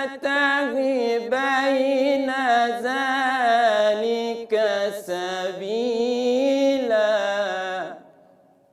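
A man's solo Quran recitation in the melodic mujawwad style: long drawn-out vowels whose pitch winds up and down in ornamented runs, broken only by brief breaths, ending about eight seconds in.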